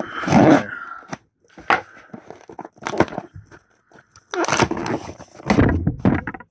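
Folding pocket knife slicing and tearing through the seam of a corrugated cardboard shipping box, in a run of uneven strokes, with the box handled and turned between cuts.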